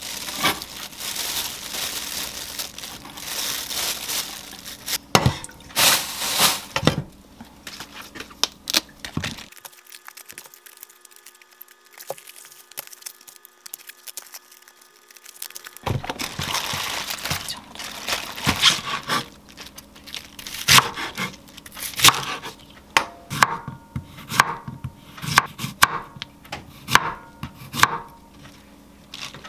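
Plastic bag crinkling and rustling as bean sprouts are handled, then napa cabbage leaves being pulled apart. A quieter stretch in the middle. Near the end, a kitchen knife slicing zucchini on a wooden cutting board in a run of sharp strokes.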